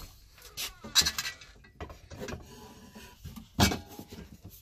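Hands fitting toilet paper holder parts through holes in a cabinet panel: scattered rubbing and handling noises, with a sharp knock about a second in and a louder one about three and a half seconds in.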